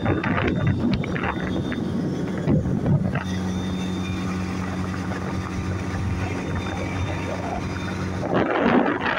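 Motorboat engine running at a steady speed, a constant low hum, with wind buffeting the microphone in gusts at the start and again near the end.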